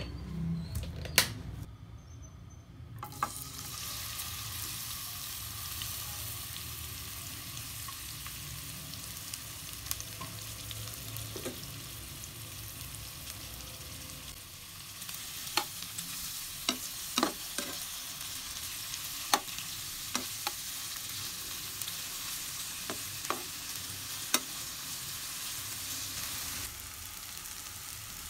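Sliced onions sizzling as they fry in hot oil in a metal pan; the sizzle sets in a few seconds in and runs steadily. From about halfway, sharp clicks and knocks of a utensil against the pan as the onions are stirred.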